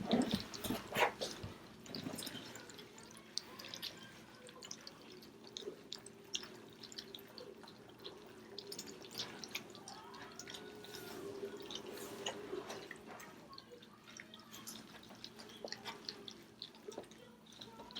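Four-week-old German Shepherd puppies lapping and eating from bowls: many small wet clicks and smacks.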